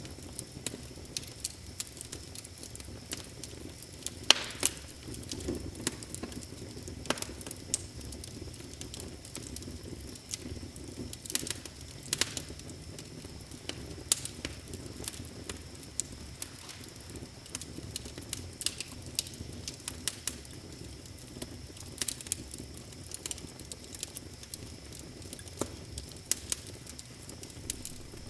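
Wood fire crackling in a fireplace: irregular sharp pops and snaps, a few much louder than the rest, over a low steady rustle of the flames.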